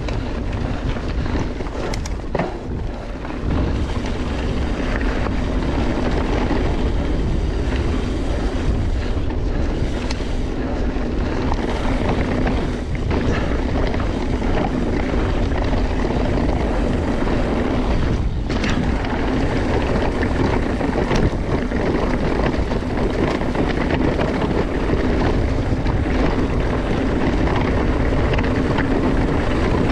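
Mountain bike ridden fast over a rough trail, heard from a helmet or bike-mounted action camera: a steady rush of wind over the microphone and rumbling tyres, with a few sharp knocks and rattles from the bike over bumps.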